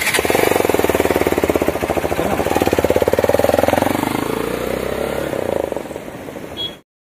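Single-cylinder motorcycle engine running with a rapid, even exhaust beat as the bike pulls away, its pitch rising and then easing. It cuts off suddenly near the end.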